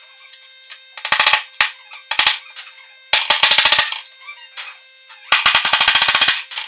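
Hammer tapping on a wooden cabinet door panel in quick runs of sharp taps, four bursts in all, the last two the longest.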